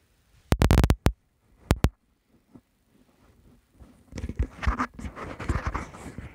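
A quick cluster of sharp knocks about half a second in and two more just before two seconds, then from about four seconds on a continuous scratchy rustling with small clicks.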